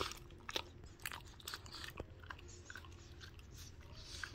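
Boston terrier chewing and licking string cheese from a person's fingers: faint, irregular mouth clicks and smacks.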